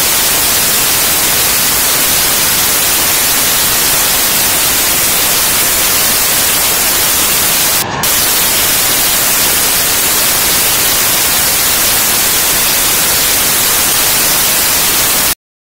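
Loud, steady static hiss, even from low to high pitch, with a very brief dropout about eight seconds in, cutting off abruptly to silence just before the end: a digital corruption glitch in the recording rather than any real sound.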